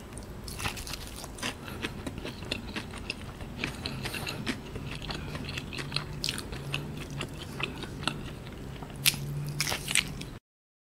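Close-up eating of crispy KFC fried chicken: bites and chewing crunch through the breaded crust in many small crackly crunches, with two louder crunches near the end. The sound cuts off abruptly just before the end.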